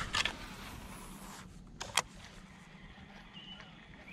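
A fishing cast with a baitcasting reel: a swish as the rod swings, the spool whirring for about a second and a half as the line pays out, then a sharp click about two seconds in as the reel is engaged for the retrieve.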